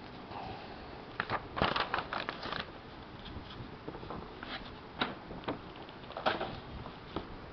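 Paper rustling and crackling as notebook pages are handled and turned: a burst of rustles a second or two in, then a few short single crackles.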